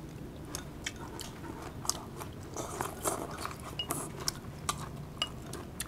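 Close-up eating sounds: a person biting and chewing crunchy raw vegetables, with irregular crisp crunches and wet mouth clicks.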